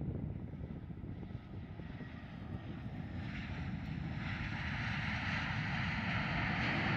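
Airbus A320 jet engines running during a landing rollout: a steady low rumble with a rushing hiss. The sound grows louder about three to four seconds in, when the engines spool up after touchdown.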